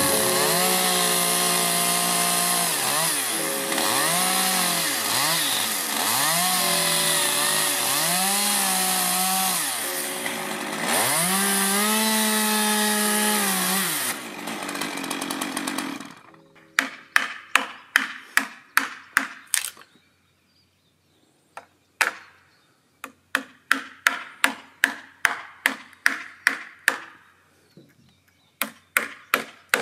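Stihl chainsaw running at full throttle, its engine pitch dipping and recovering several times as the chain bites into a wooden post. About halfway through the saw stops, and a hammer strikes a wood chisel in quick runs of sharp blows, about three a second, with short pauses between runs.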